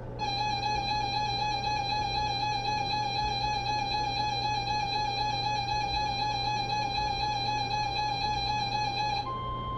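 Weather-radio alert tones between warnings. A buzzy electronic alarm tone with a slight warble is held for about nine seconds, then cuts off sharply and gives way to a steadier, purer, slightly higher tone: the 1050 Hz NOAA Weather Radio warning alarm that comes before a warning message.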